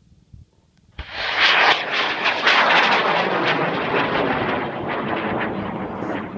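An Aerotech N1000W (White Lightning) rocket motor in a 98 mm minimum-diameter rocket ignites about a second in and burns with a loud, rough rushing noise full of crackles, fading slowly as the rocket climbs away.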